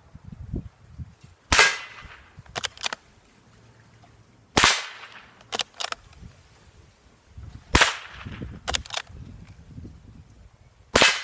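Four rifle shots from a Savage Mark II bolt-action .22 LR rifle, spaced about three seconds apart. Each crack is followed about a second later by a couple of quick, smaller clicks.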